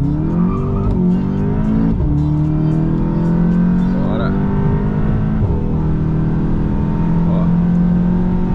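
Stage 3 tuned 2023 Volkswagen Jetta GLI's turbocharged 2.0-litre four-cylinder at full-throttle acceleration, heard inside the cabin. The engine note rises through the gears and drops at quick upshifts about two and five and a half seconds in.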